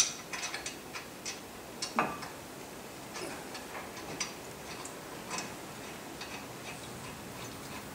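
Small, irregular metal clicks and clinks from a C3 Corvette front brake caliper and its bolt being handled and fitted onto the brake bracket by hand, with a sharp click right at the start and a louder knock about two seconds in.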